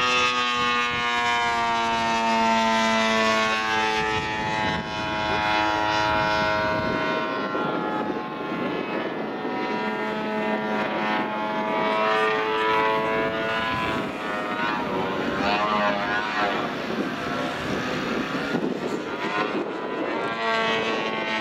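Engine and propeller of a radio-controlled fibreglass Pitts biplane model in flight overhead. The pitch slides down over the first few seconds as it passes, then rises and falls with throttle changes through its manoeuvres.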